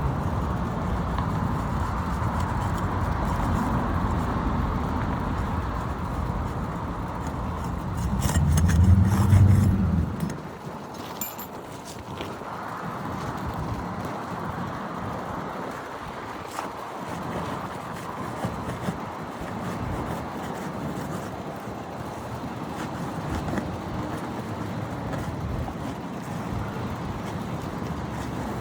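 Road traffic: a motor vehicle's engine hum that swells to its loudest about nine seconds in and drops away suddenly about a second later, leaving a quieter steady traffic background with a few faint clicks.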